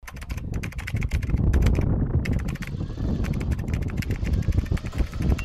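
Rapid typing clicks, about ten keystrokes a second with a short pause about two seconds in, over a steady low rumble.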